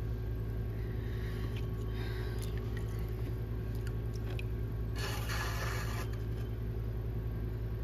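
Potter's wheel motor humming steadily, with a few light clicks and a brief scrape about five seconds in, like a tool against spinning clay.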